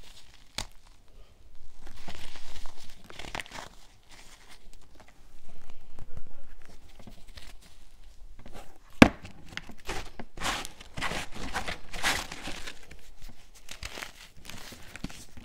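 Packed baking soda balls crushed and crumbled between the fingers: crisp crunching in irregular bursts, with a sharp snap about nine seconds in and denser crunching just after it.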